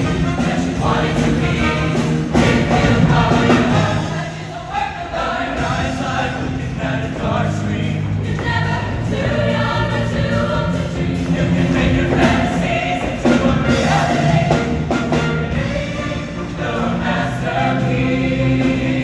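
Show choir singing in parts over instrumental backing music with a steady beat.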